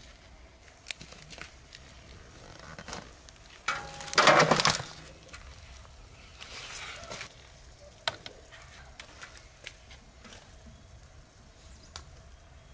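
Metal clatter of a large cooking pot turned upside down onto a wide metal serving tray, loudest about four seconds in, with a softer scrape a few seconds later and scattered light knocks as the tray is handled.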